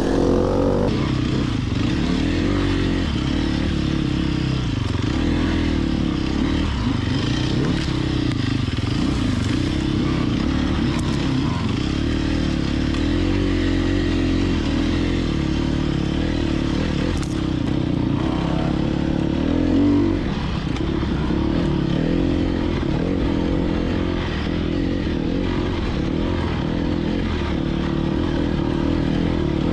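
Dirt bike engine running under way off-road, close to the rider's camera, its revs rising and falling, with a brief louder burst of revs about twenty seconds in.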